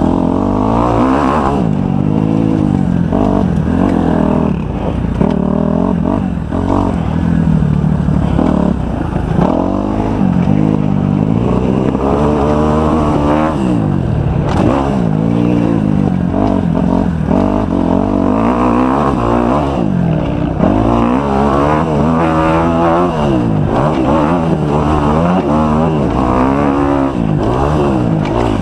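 Kawasaki 250 motocross bike engine ridden hard around a dirt track, revving up and dropping back again and again as the throttle is worked through gears, corners and jumps.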